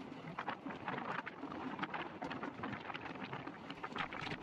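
Passenger train running at speed, heard from the coach's open doorway: a steady rush of wheels on the track and wind, with many irregular sharp clicks and clacks from the wheels and running gear.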